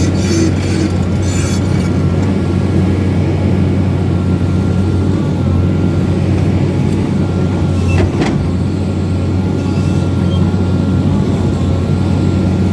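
Excavator's diesel engine running steadily with a deep hum. A single short sharp knock about eight seconds in.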